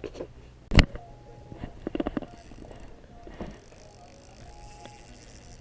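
Fishing tackle being handled: a sharp knock about a second in, then a run of small clicks and rattles, and a few more clicks a little later.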